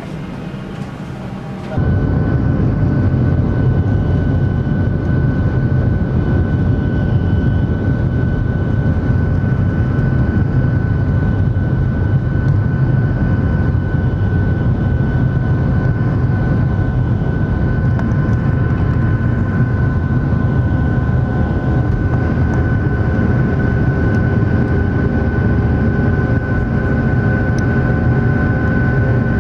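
Boeing 737-600's CFM56-7B turbofan engines at takeoff power, heard from a cabin seat beside the wing: a loud, steady rush with a constant high whine through the takeoff roll and climb-out. It cuts in suddenly about two seconds in, after a quieter cabin hum.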